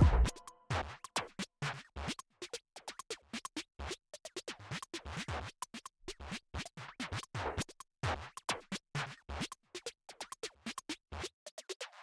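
Irregular scrapes and clicks of a metal palette knife spreading whipped cream over a cake on a metal cake board.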